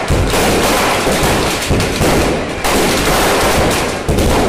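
Firecrackers packed inside a burning Ravana effigy going off in a rapid, continuous string of loud bangs and crackles.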